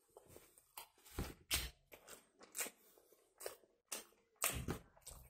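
A person chewing a mouthful of kebab sandwich, with a string of short wet smacks and crunches, about two a second, the loudest a little over a second in and near the end.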